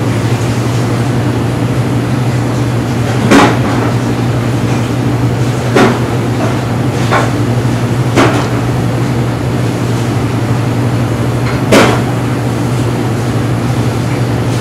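Steady low hum of commercial kitchen equipment, with four sharp knocks a few seconds apart as seafood is dredged through a tray of flour.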